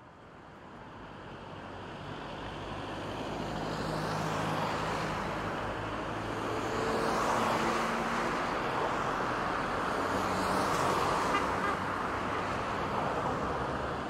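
Road traffic noise: a steady wash of cars passing on a street, fading in over the first few seconds and then holding steady.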